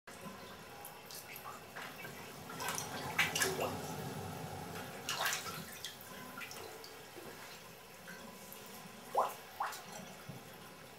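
Water in a bathtub moving and dripping, with scattered brief splashes; the loudest come about three seconds and nine seconds in.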